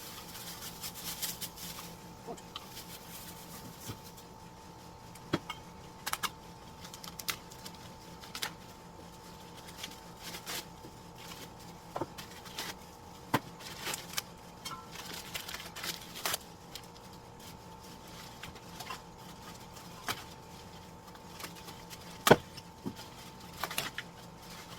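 Office chair parts and packaging being handled during unboxing: scattered knocks and clicks with bouts of rustling, the loudest knock about 22 s in, over a faint steady hum.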